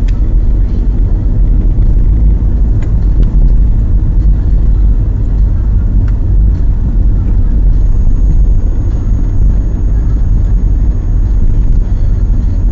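Car driving, heard from inside the cabin: a steady low engine and road rumble, with a few small clicks or rattles.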